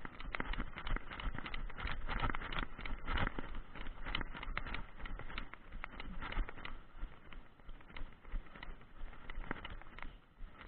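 A ridden mare's hooves clopping and crunching along, a dense, irregular run of clicks and crackles.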